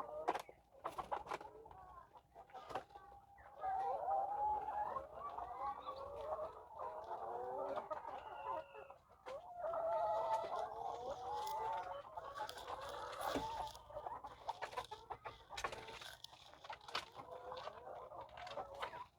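A flock of laying hens clucking and calling, many voices overlapping, with scattered sharp clicks among them.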